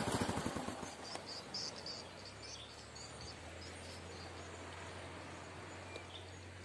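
A small motorcycle engine idling with a rapid even pulse fades out within the first second. What remains is quiet outdoor ambience: scattered short high chirps over a steady low hum.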